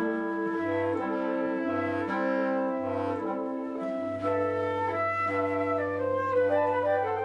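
Military wind band playing sustained chords on woodwinds and brass. Underneath, a low bass note sounds three times and is then held from about halfway through.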